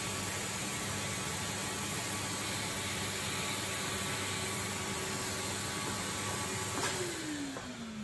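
Henry vacuum cleaner running with its hose held against a bicycle frame port, sucking a thread through the internal cable route. It runs steadily, then about seven seconds in there is a click and the motor winds down with a falling whine.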